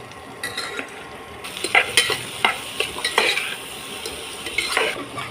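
Food sizzling as it is fried in a pan and stirred with a spatula, with repeated scrapes and knocks of the spatula against the pan. The sizzle starts about a second and a half in.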